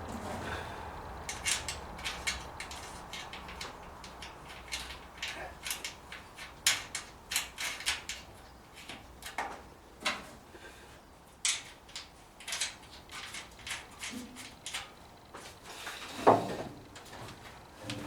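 Irregular metal clicks, taps and clinks of nuts, bolts and hand tools as a brake booster's mounting bolts are fitted and tightened through a car's steel firewall, with one louder knock near the end.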